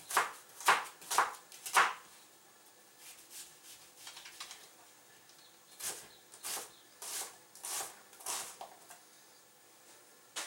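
Kitchen knife cutting through an onion half and striking a plastic cutting board: four sharp cuts in quick succession, a pause, then five more evenly spaced cuts about half a second apart.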